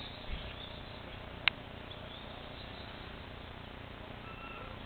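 Steady low background noise with one sharp click about a second and a half in, and a faint short high tone near the end.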